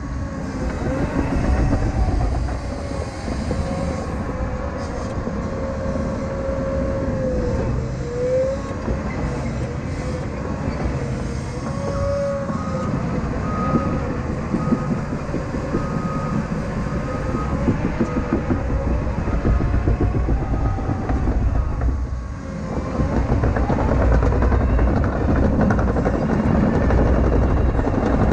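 Caterpillar 953K track loader working: the diesel engine runs under load, its pitch rising and falling, with a steady clattering from the steel tracks. A backup alarm beeps evenly for several seconds midway through.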